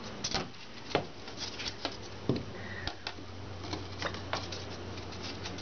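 Scattered light taps and clicks as a wooden yardstick is handled and set against a painted wall, with a low steady hum coming in about two seconds in.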